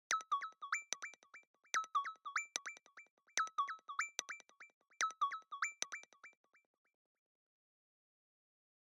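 An Apple Watch ringtone from watchOS 26: a short synthesized phrase of quick, bright notes played four times in a row, ending about six and a half seconds in.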